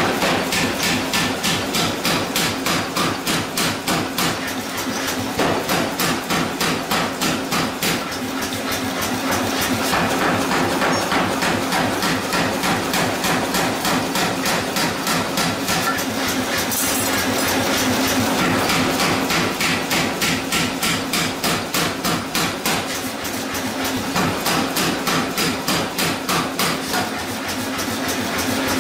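A power hammer hot-forging a glowing steel hammer-head blank, striking in rapid, even blows of about four a second, in runs with short lulls between them. A steady hum runs underneath.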